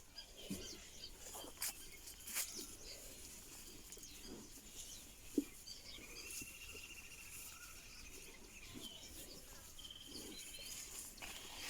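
Faint outdoor farm ambience: a few short high bird trills and chirps, with scattered light clicks and knocks and one sharper short knock about five seconds in.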